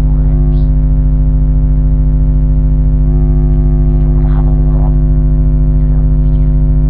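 Loud, steady electrical mains hum and buzz on the recording: a deep low tone with a stack of higher buzzing tones above it, unchanging throughout.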